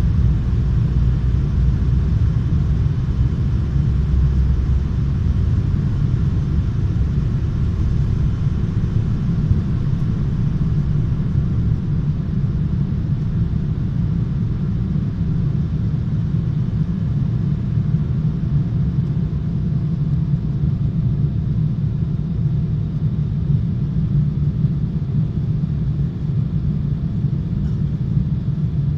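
Airliner cabin noise during takeoff and initial climb: a steady, heavy low rumble of engines and airflow, heaviest in the first few seconds while the plane is still near the runway.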